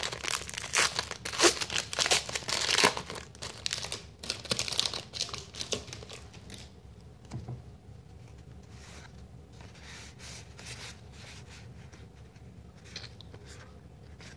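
Foil wrapper of a Panini Complete basketball card pack being torn open and crinkled, loud for the first six seconds or so. After that, faint soft rustles of the cards being slid out and flipped through in the hands.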